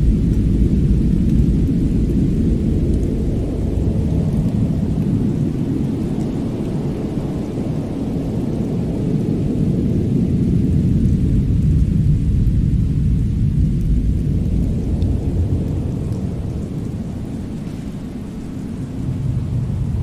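Winter snowstorm-and-fireplace ambience: a deep, steady rumble that swells and eases over several seconds, dipping about three-quarters of the way through before rising again.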